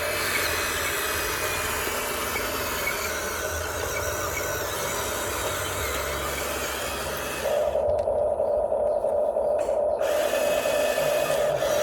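Huina 1592 radio-controlled toy excavator working: a rough, scraping noise for about seven seconds, then the steady whine of its electric motors comes back louder.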